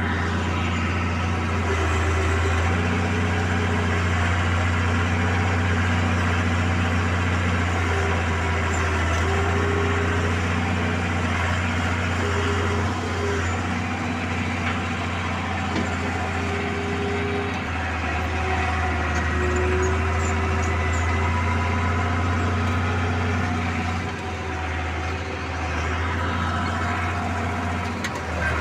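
Bulldozer's diesel engine running steadily, its note rising and falling slightly now and then.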